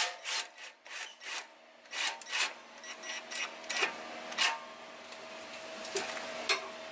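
Socket wrench on a long extension working the nut of an exhaust muffler clamp: short, irregular strokes of metal scraping and grinding, close together at first and more spread out later, with a faint steady tone underneath from about halfway.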